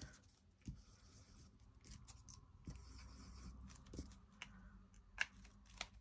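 Faint, scattered taps and clicks of small paper circles being handled and pressed into place on a card, with the sharpest tap about five seconds in.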